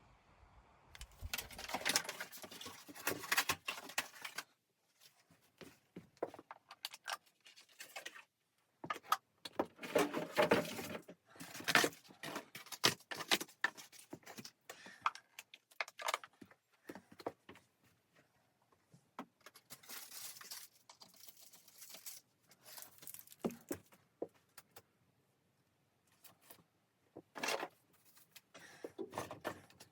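Objects being handled: bursts of rustling and light clinking in clusters of a second or two, with short quiet gaps between them.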